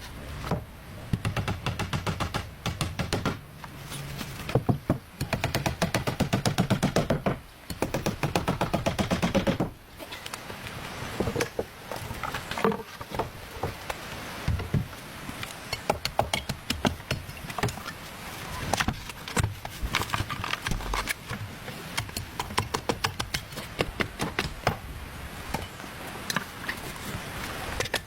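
Knocks and strikes on wood from hand work on timber. Dense, rapid runs of blows fill the first ten seconds with short pauses between them, and scattered single knocks follow.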